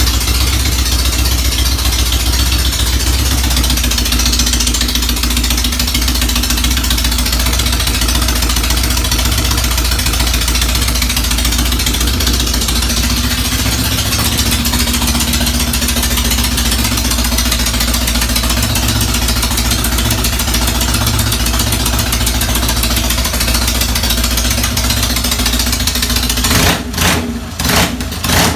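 Freshly rebuilt Norton Commando's air-cooled parallel-twin engine running steadily on its first start after the rebuild, its pitch rising slightly partway through. Near the end the sound dips briefly a few times.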